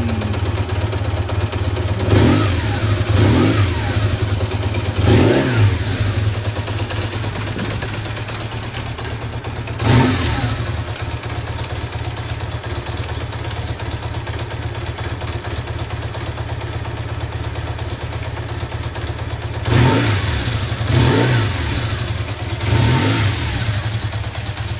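BMW R1100S air/oil-cooled boxer twin idling steadily, with short throttle blips that rise and fall back to idle: a few in the first five seconds, one about ten seconds in, and three near the end.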